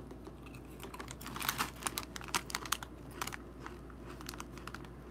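SunChips Original multigrain chips crunching as they are chewed, and the chip bag crinkling as it is lifted: a run of irregular crackles from about a second in until near the end.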